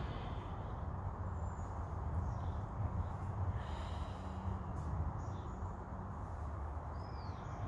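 Forest ambience: a steady low rumble with soft breathing and a short bird chirp near the end.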